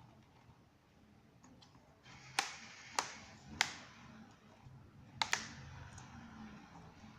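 Sharp clicks: three evenly spaced about half a second apart, then a quick double click about five seconds in.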